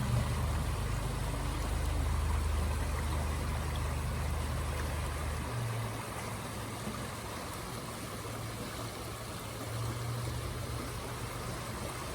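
River water rushing steadily over rocks, with a low steady hum underneath that is strongest for the first five seconds or so and swells again about ten seconds in.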